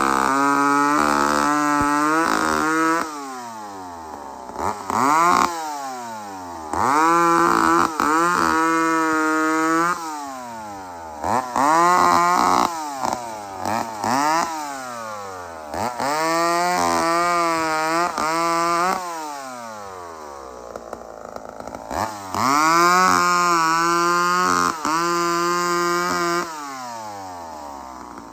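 An old two-stroke chainsaw, recently revived with a cleaned carburetor, revved hard about seven times. Each time it climbs to full speed, holds there briefly, then drops back to idle.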